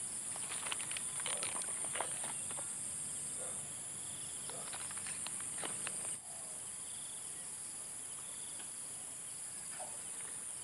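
Steady high-pitched chorus of insects. In the first half there are scattered light clicks and rustles.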